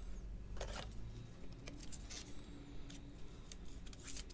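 Trading cards and clear plastic card sleeves being handled: a few faint, scattered crinkles and light clicks over a low steady hum.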